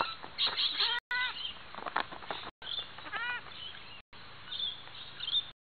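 Young goats bleating, two short nasal calls that rise and fall in pitch, with scattered thumps of hooves landing on a trampoline mat.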